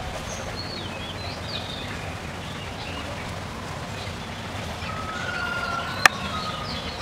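Outdoor ambience of small birds chirping in short calls over a steady low background rumble. A thin held tone sounds near the end, and a single sharp click comes about six seconds in.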